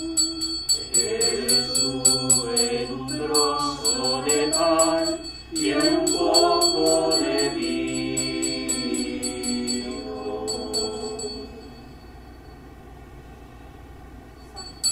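A church music group sings a slow devotional acclamation with instrumental accompaniment and a steady fast high ticking beat. The song fades out about eleven seconds in. A short ding sounds right at the end.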